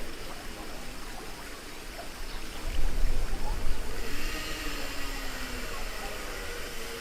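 Water rushing and splashing on a river-rapids raft ride, swelling briefly about three seconds in.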